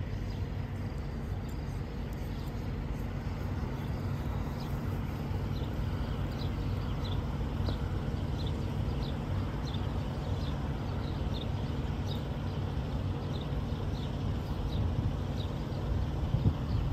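Steady low rumble of traffic and vehicle engines. A faint, short, high chirp repeats a little under twice a second from about two seconds in until near the end.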